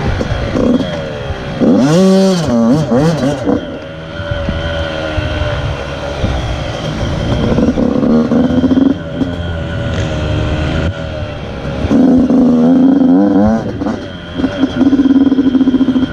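Honda CRF80 pit bike's small single-cylinder four-stroke engine revving up and easing off again and again as it is ridden, the pitch climbing and dropping with the throttle; the sharpest climbs come about two seconds in and about twelve seconds in.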